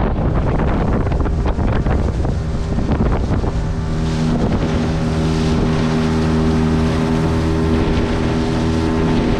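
Outboard motor of a small fishing boat running steadily under way, a constant engine drone, with wind buffeting the microphone and water rushing past the hull.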